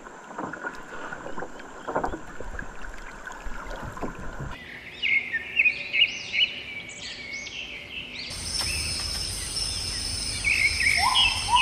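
Outdoor noise with scattered knocks, then an abrupt change to several birds calling in chirps and short whistled glides. A steady high insect drone joins them about eight seconds in.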